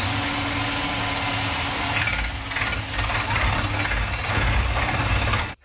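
Power drill running steadily as its bit bores a hole through wood, with the motor's low hum under a rough cutting hiss. It cuts off abruptly near the end.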